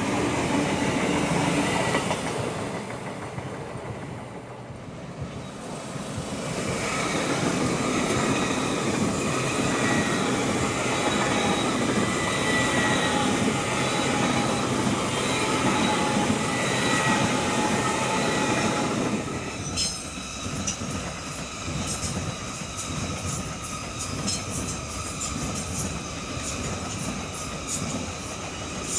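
Great Western Railway Intercity Express Trains (Class 800 series) passing at close range: a loud rolling rumble with a steady high-pitched whine, dipping briefly a few seconds in. From about two-thirds of the way through, the rumble eases and sharp irregular clicks of wheels over the rail joints take over.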